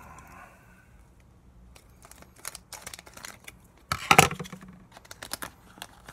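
Pokémon card booster pack wrapper being handled and torn open: small crinkles and clicks, with one louder short rip about four seconds in.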